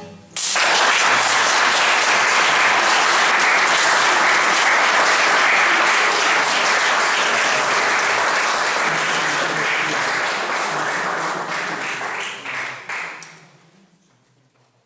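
Audience applauding, bursting in about half a second in and holding strong and even. Near the end it thins to scattered claps and dies away.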